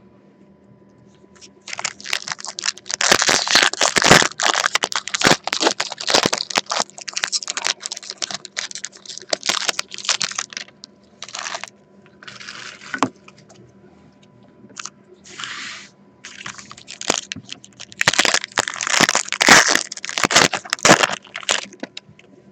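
Trading card pack wrappers and plastic packaging crinkling and tearing as packs are opened and handled. There is a long spell of dense crackling early on, scattered short rustles in the middle, and another loud burst of crinkling near the end.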